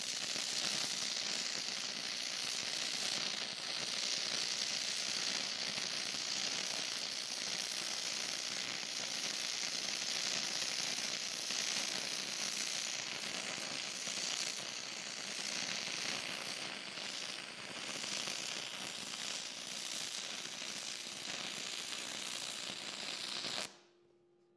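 Stick-welding arc of a 6010 electrode run on AC: a steady, harsh crackle and sizzle, throwing heavy spatter as the rod blows metal out of the molten pool. It cuts off suddenly near the end as the arc is broken.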